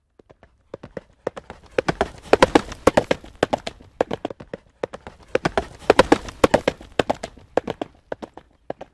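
Horse hoofbeats at a gallop: rapid hoof strikes begin faintly out of silence, become loud within about two seconds, ease slightly, are loudest again around six seconds in, then thin out near the end.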